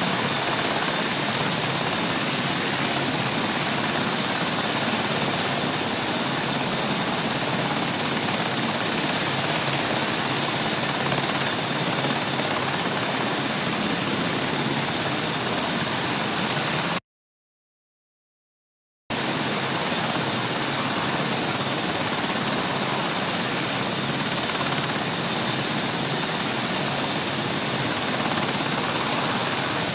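Sikorsky VH-60N presidential helicopter running on the ground with its rotor turning: a steady, even engine noise with a high whine held on one pitch. The sound drops out completely for about two seconds past the middle.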